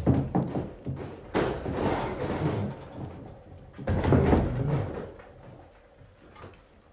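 Puppies squabbling: a few short bursts of scuffling and yapping, about a second and a half and again about four seconds in, then quieting down.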